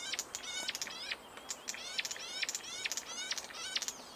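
Bleating warbler (camaroptera) calling: a rapid series of short chirps, each stepping quickly down in pitch, about three or four a second, with sharp clicks among them.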